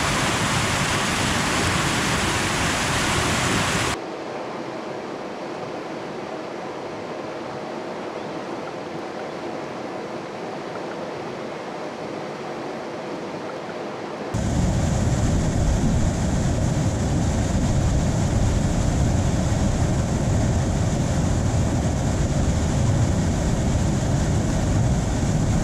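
Whitewater rushing through river rapids below a mill weir, a steady roar of water. It drops abruptly quieter about four seconds in, then returns louder and deeper about ten seconds later.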